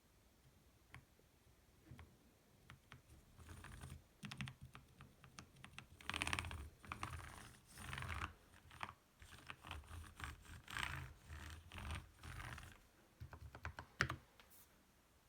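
Typing on a tenkeyless mechanical keyboard with lubed Kailh Speed Copper switches. A few scattered keystrokes at first, then about ten seconds of fast typing, then a few last keystrokes with one sharper, louder click near the end.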